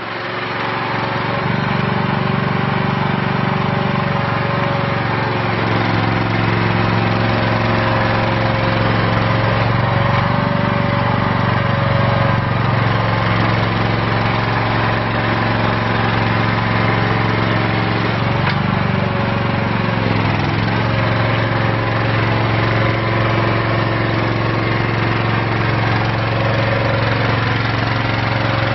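Gasoline/LP engine of a Donkey Burro D13-3K walk-behind truck-mounted forklift running steadily as the machine is driven, its speed shifting a few times and dipping briefly about two-thirds of the way through.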